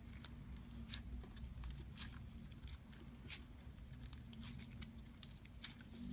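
Slime being squeezed and pressed by hand, giving faint, irregular sticky clicks and crackles over a low steady hum.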